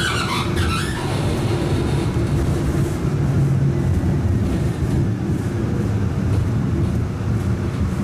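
Running noise heard inside a Siemens S70 light-rail streetcar moving along a street: a steady low rumble of the car's motors and wheels on the rails.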